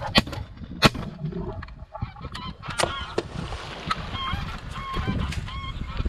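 Greylag geese honking, repeated short calls that grow clearer in the second half. A few sharp cracks cut through in the first three seconds, the loudest about a second in.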